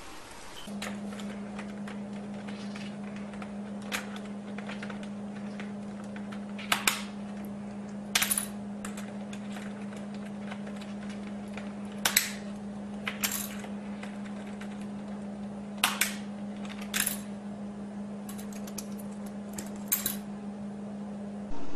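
Eclectus parrot prying keycaps off a computer keyboard with its beak: sharp plastic clicks as keys pop loose and drop, coming irregularly every second or few, over a steady low hum.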